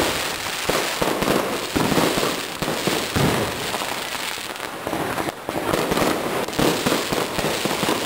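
Fireworks going off: dense, irregular crackling and popping with sharp bangs scattered throughout.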